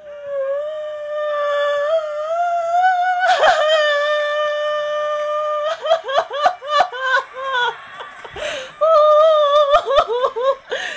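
A woman wailing in a high, drawn-out cry, with a sharp gasping breath about three and a half seconds in, then breaking into short, falling sobs from about six seconds, with another gasp partway through.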